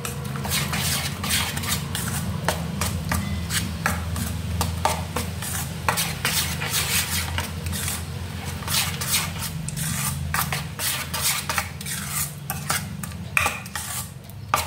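Steel spoon stirring thick rava idli batter in a stainless steel kadai, a steady run of rapid scraping and clinking of metal on metal, mixing in water just added to thin the batter. A steady low hum runs underneath.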